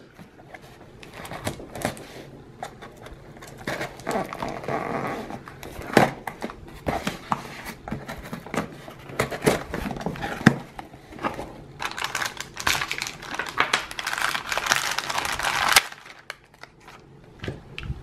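Packing tape on a cardboard box being slit and torn open with the blade of a small titanium key-shaped multi-tool, a blade that is not razor sharp. Scattered clicks and taps on the cardboard, with two longer spells of rasping tearing and scraping, the second and longest towards the end.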